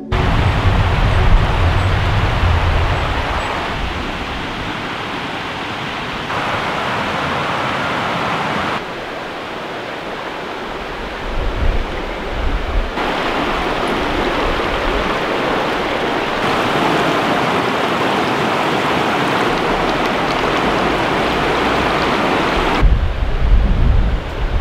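Creek water rushing over rocks as a steady hiss, with wind buffeting the microphone at times. The level steps up and down every few seconds.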